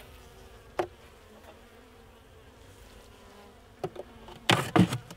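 Honey bees buzzing around an open hive, a faint steady hum. Over it come a sharp knock about a second in and a cluster of loud wooden knocks and scrapes near the end, as a hive frame is pried loose with a metal hive tool.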